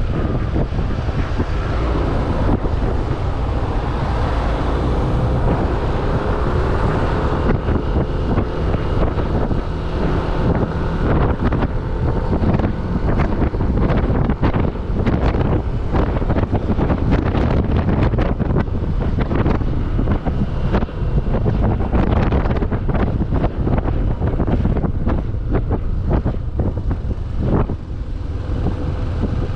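Heavy wind buffeting on the microphone of a moving motorcycle, with the engine's note running faintly underneath and drifting slowly in pitch.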